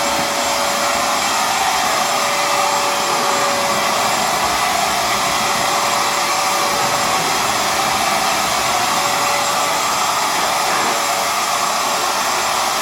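Hoover FloorMate Edge hard floor cleaner running steadily, its suction motor whining with one constant tone over a rushing noise as it sucks up water from the floor.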